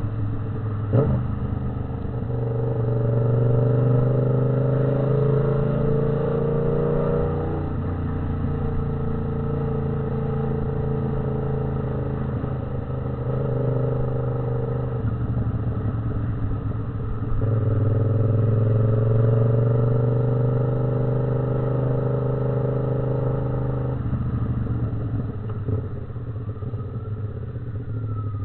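Yamaha MT-07 parallel-twin engine and exhaust running steadily. Its note swells with more throttle in several stretches of a few seconds each and eases off between them.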